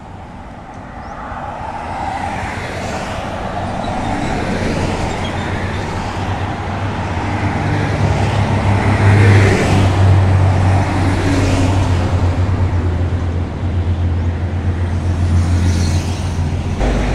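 A motor engine running with a steady low hum, growing louder over the first couple of seconds.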